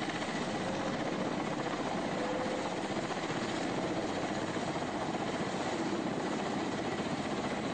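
A military helicopter's rotors and turbine engines running steadily.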